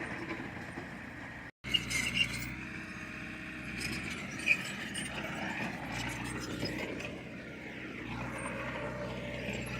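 Heavy earthmoving machine's engine running steadily, with a few sharp metallic clinks. The sound cuts out for a moment about one and a half seconds in.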